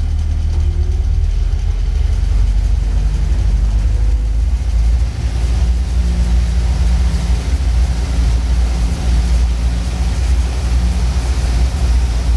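Land Rover Series III's 2.25-litre four-cylinder petrol engine running steadily under way, heard from inside the cab. A hiss comes up in the upper range about halfway through.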